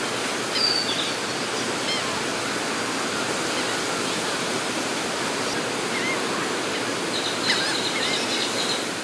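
Steady rush of surf breaking along the beach, with a few faint, short high calls over it.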